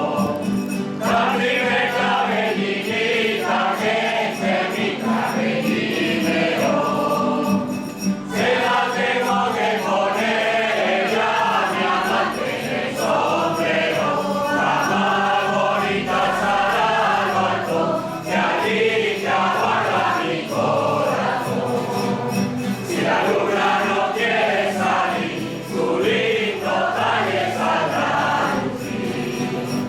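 A group of voices singing a folk ronda song together, in sung phrases with short breaks between verses.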